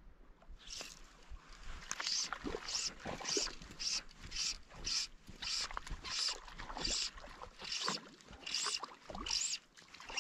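Fly line being stripped in by hand, a rhythmic swish with each pull, about two a second.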